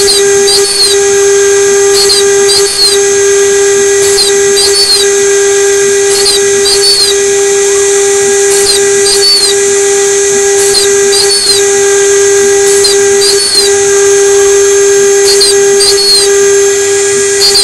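A homemade CNC router's 2.2 kW spindle runs at a steady whine while an engraving bit mills the copper traces of a PCB. Short rising-and-falling chirps come in twos and threes every second or two as the stepper-driven axes move the bit between cuts.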